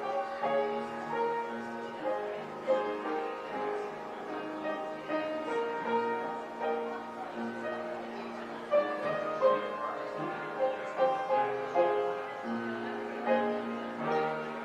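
Piano playing a prelude: struck notes over held chords.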